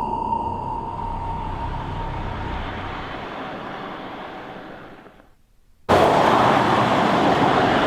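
Horror film sound design: a steady rushing hum fades away to near silence about five seconds in. Moments later a loud, steady rushing noise cuts in abruptly.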